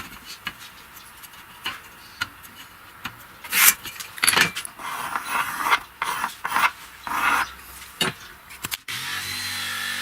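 Hand-tool work: irregular scraping and rubbing strokes, like filing or sanding. About nine seconds in, it cuts abruptly to a steady hum with low tones.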